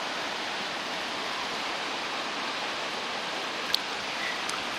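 Steady rush of a fast-flowing mountain stream. Two small sharp clicks near the end.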